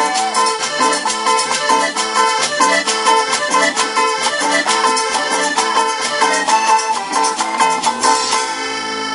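Live tropical dance band playing Latin music: melody notes over a steady, fast percussion beat. About eight seconds in, the beat stops and a chord is held.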